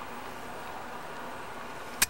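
A steady, even hiss with no distinct events.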